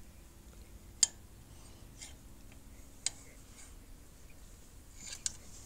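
A few sharp little metal clicks, spaced out, the loudest about a second in, as a steel snap ring is worked into a koinobori pole's clip fitting.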